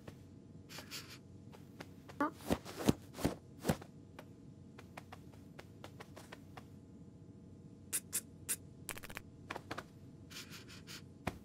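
Cartoon sound effects of a cat moving about on a sofa: short, quiet scratchy scuffs and pats of paws on the cushions. They come in a cluster in the first few seconds, pause, and come again in a quicker run in the last few seconds.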